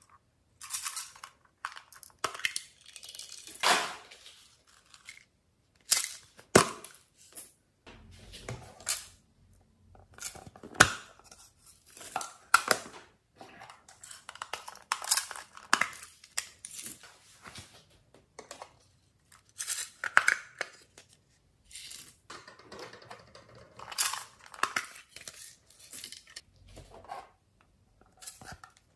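Small tin and plastic cases handled and emptied over a glass bowl: irregular clicks, taps and short scraping rasps, with brief silent gaps between them.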